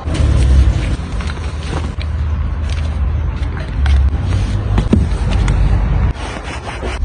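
Mercedes-Maybach GLS 600 running, a steady deep rumble with scattered light clicks over it.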